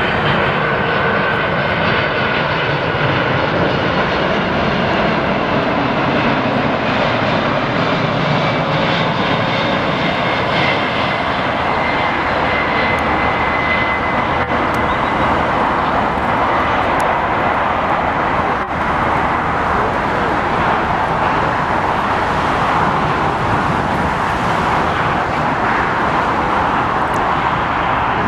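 Boeing 747's four jet engines on final approach, a loud, steady rush with a high whine laid over it.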